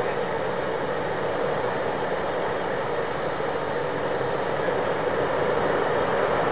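Steady rushing noise with no distinct tone, getting slightly louder near the end.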